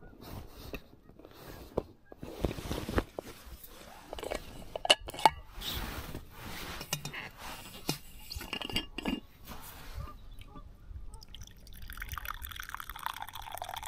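Knocks and clinks as a stainless steel vacuum flask and a wooden cup are handled. Near the end, a hot drink pours from the flask into the wooden cup.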